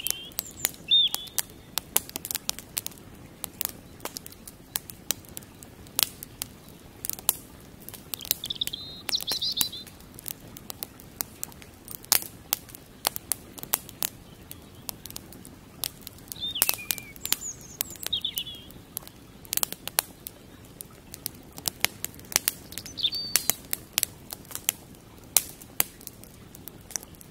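Wood campfire crackling with sharp, irregular pops, while a few short bird chirps sound now and then.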